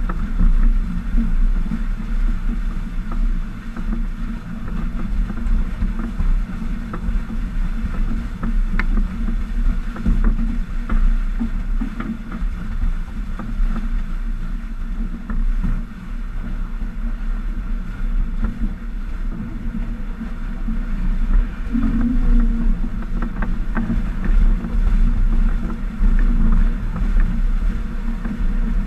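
Water rushing along a Stiletto 27 catamaran's hull under sail at about nine knots, with wind buffeting the microphone as a steady low rumble.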